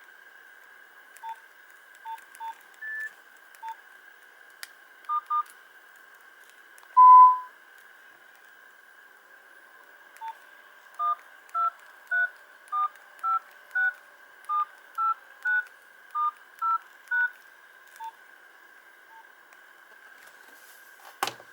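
Nokia 1110i keypad tones. A few scattered short beeps and one longer, louder beep about seven seconds in, then twelve touch-tone dialing beeps in an even run, about two a second. Their pitch pairs match the keys 1 through 9, star, 0 and hash pressed in order. A faint steady whine sits underneath, and a sharp click comes near the end.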